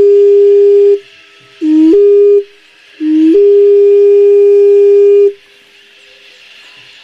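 A wind instrument blowing three long, steady notes. Each note starts a step lower and rises to the same held pitch. The last note cuts off about five seconds in, leaving a faint hiss.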